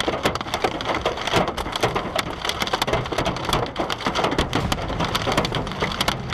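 Heavy precipitation pelting a hard surface: a dense, continuous crackling patter of many small sharp impacts over a steady low rumble.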